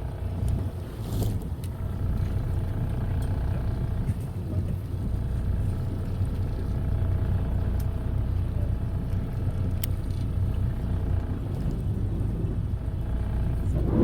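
A fishing boat's engine running steadily, a low rumble with a faint hum above it and a few small clicks.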